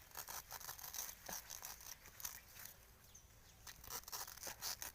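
Irregular crackling and rustling of dry forest litter and vegetation being handled or pushed through, made up of many short scratchy crackles and snaps.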